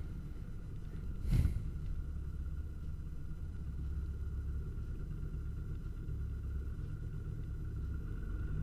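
Small boat's outboard motor running steadily at low speed, a low rumble with a faint steady whine, heard from the bow of the aluminium boat. A single sharp knock sounds about a second in.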